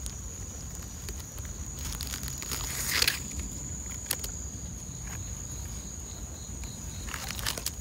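Steady high-pitched insect drone, with footsteps and rustling among leaves and a louder rustle about three seconds in.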